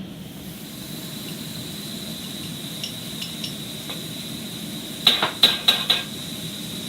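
Scallops frying in a hot wok with a steady sizzle and a faint high steady whine, then, about five seconds in, a quick run of four or five sharp clinks.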